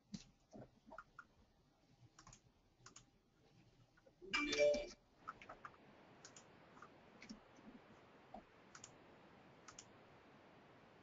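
Faint, scattered clicks of a computer keyboard and mouse, with one louder short sound a little over four seconds in.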